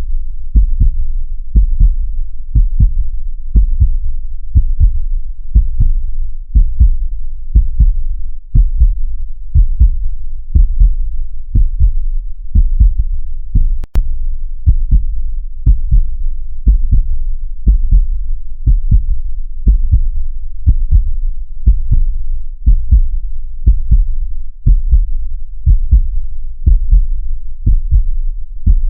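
Heartbeat recording: a steady rhythm of deep, low thumps beating evenly. A single brief click comes about halfway through.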